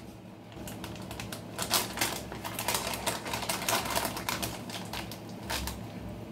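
Chewing of breaded chicken nuggets, close to the microphone: a quick, irregular run of crunchy mouth clicks that starts about half a second in and tails off near the end.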